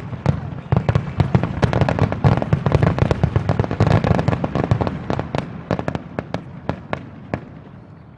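Fireworks finale: a rapid barrage of bangs and crackles, many per second, over a low rumble. It thins out over the last few seconds and stops about seven seconds in, the end of the show.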